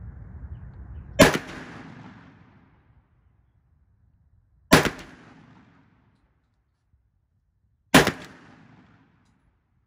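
ATI Bull-Dog 12-gauge gas-operated bullpup shotgun fired three times, about three seconds apart, each shot trailing off in a short echo.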